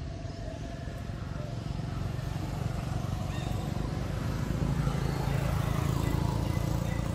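A motor vehicle engine running as a low rumble, growing louder about four seconds in and easing off near the end, as if passing by.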